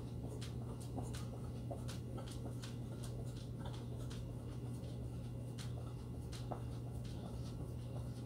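A person doing jumping jacks: light, quick taps and rustles from landings and clothing, recurring about twice a second over a steady low hum.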